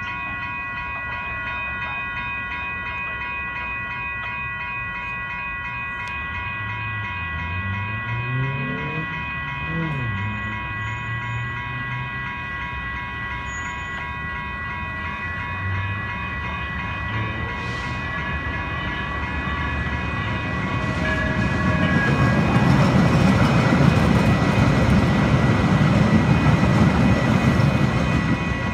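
Two electronic railroad crossing bells, a WCH Type 1.5 and a General Signals Type 1, ringing steadily. A brief rising and falling hum passes about eight to ten seconds in. A three-car light rail train then passes the crossing, and its wheel and rail rumble grows loud over the last several seconds.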